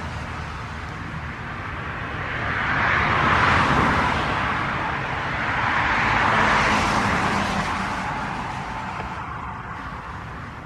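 Jet engine noise from an easyJet Airbus A319 on its take-off run, a broad rushing sound that swells twice and then fades away.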